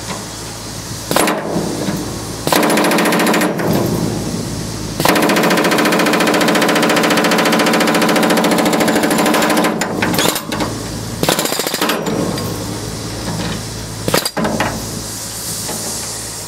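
Pneumatic rivet buster hammering against a wrought-iron floor beam, driving out a rivet whose head has been torch-cut. It runs in several bursts of rapid blows, the longest lasting about five seconds around the middle. A steady low hum fills the pauses.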